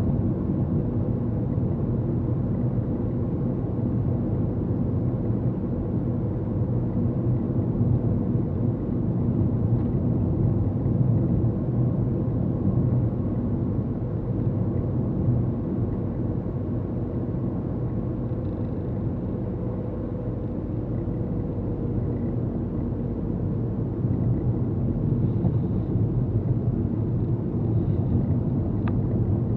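Steady low rumble of a car's engine and tyres on the road, heard from inside the cabin while driving at about 50–60 km/h.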